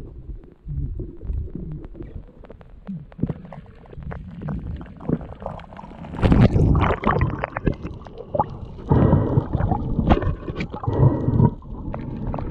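Underwater rumbling and gurgling of water moving over a submerged action camera as a diver swims along the reef. It comes in uneven surges, loudest about six seconds in and again about nine seconds in.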